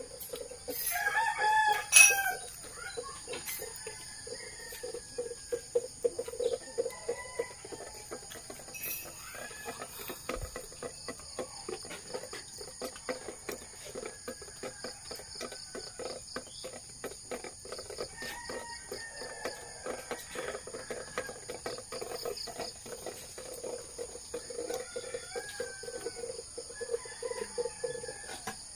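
A rooster crowing loudly about a second in, followed by several fainter crows spread through the rest, over a steady high-pitched drone.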